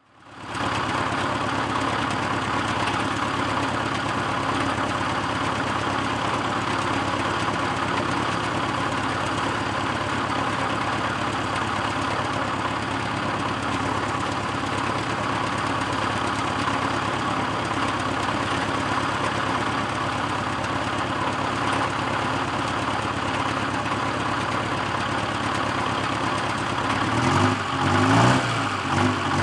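Heavy-equipment diesel engine idling steadily. Near the end a deeper engine note comes in and its pitch rises and falls unevenly as the loader's engine is run up.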